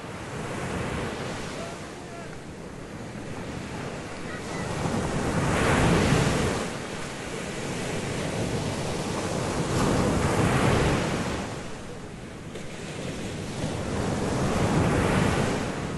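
Sea waves washing and surging, swelling louder three times like breaking swells, with a wind-like rush.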